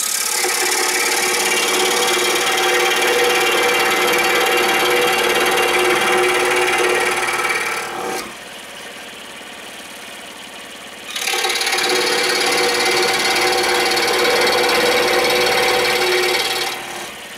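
Excalibur scroll saw running, its reciprocating blade cutting a wooden blank with a steady buzz. The cutting sound dies down for about three seconds in the middle, then resumes, and fades out near the end.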